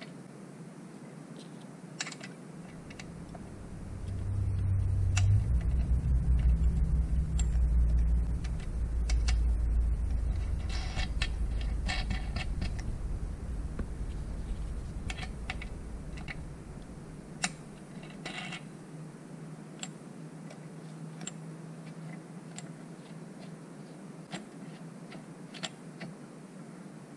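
Small metal parts clinking and tapping as steel bar studs are threaded into a chainsaw crankcase, in scattered single clicks. A low rumble swells a few seconds in, is the loudest sound for several seconds, and fades out about two-thirds of the way through.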